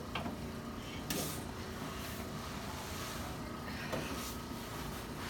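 Low rustling and shifting of a person turning over on a padded chiropractic treatment table, with a few faint clicks.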